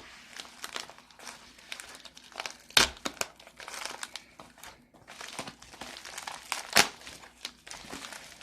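Shipping packaging being handled and crinkled while it is opened, with two sharp knocks, about three seconds and about seven seconds in.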